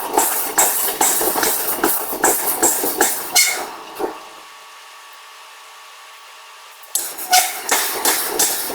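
Heavy forging hammer striking a large hot steel shaft in a fast, even rhythm of about two and a half blows a second. The blows stop for about three seconds, leaving only a steady machine hum, then start again near the end.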